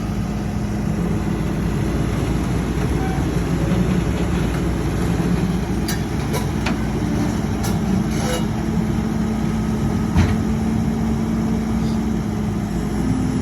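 Hydraulic excavator's diesel engine running steadily while it works loading, with a few sharp knocks and clanks between about six and ten seconds in.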